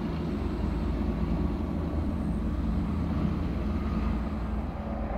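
Jet engines of an Airbus A320 moving along the airfield, heard at a distance: a steady low rumble.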